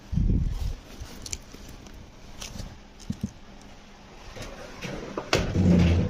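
Clothes being rummaged through in a cupboard: rustling, a few light clicks, and a heavy thump of handling at the start. Near the end a steel cupboard door is pushed shut with a knock, and its metal knob handle is turned.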